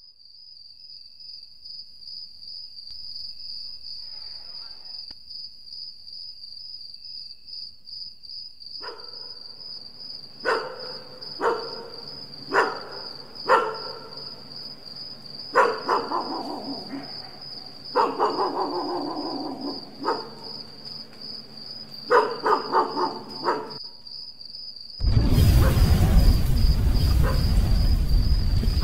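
A cricket trilling steadily on one high note. From about nine seconds in, a dog barks in short sharp bursts and gives falling-pitch howls. Near the end a loud rushing noise starts suddenly and covers everything.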